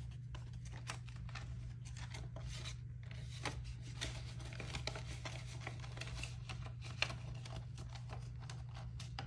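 Paper banknotes rustling and crinkling in the hands, and a bill sliding into a clear plastic pocket of a ring-binder cash wallet, with many short crisp rustles and scrapes. A steady low hum runs underneath.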